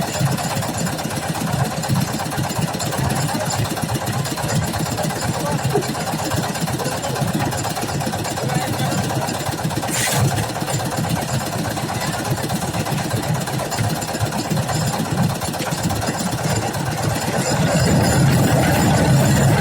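Construction machine engine running steadily with a fast, even pulse. A single short click comes about halfway through, and the engine gets a little louder near the end.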